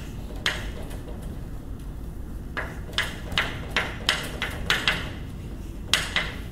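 Chalk tapping and scraping on a blackboard as writing goes on, in short sharp strokes. After a lull of about two seconds, a quick run of taps follows.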